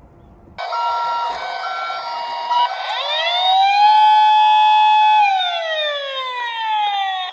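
Electronic siren of a battery-powered toy ambulance, switched on suddenly. It starts with a hi-lo two-tone pattern, then goes into a wail that rises, holds, and slowly falls.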